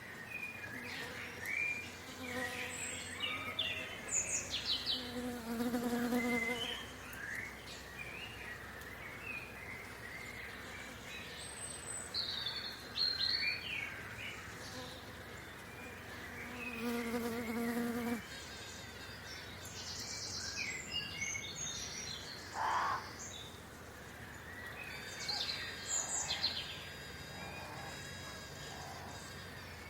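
Small birds singing and chirping with many short calls and trills. A flying insect buzzes past twice, about four to six seconds in and again around sixteen to eighteen seconds in.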